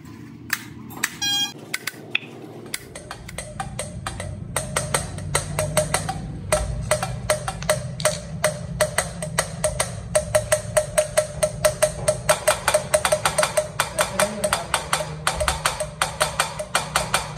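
Valves being hand-lapped into a Bedford diesel truck cylinder head: lapping sticks spun between the palms, the valves knocking and grinding on their seats. The knocks are sparse at first, then from about four seconds in come in a fast, steady rhythm of about five a second.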